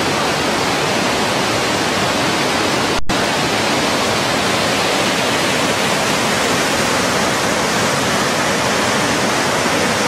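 Large mountain-river waterfall and rapids rushing over rocks in a steady, loud roar, with a split-second break in the sound about three seconds in.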